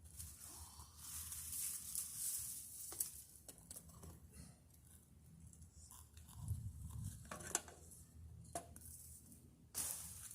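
Dry palm fronds rustling and crackling as they are handled and cut by hand, in irregular stretches with a few sharp snaps and clicks.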